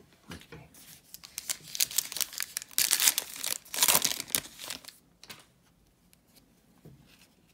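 Foil wrapper of a football trading-card pack being torn open and crinkled. A dense crackling starts about a second in, is loudest around three to four seconds, and dies away at about five seconds.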